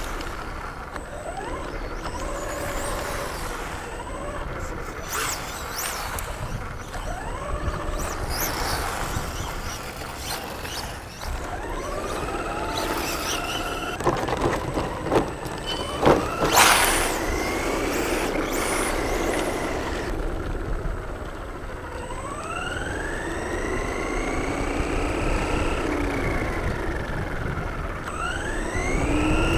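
Radio-controlled model car's motor whining, its pitch rising and falling again and again as the car speeds up and slows, with a few short bursts of crackle partway through.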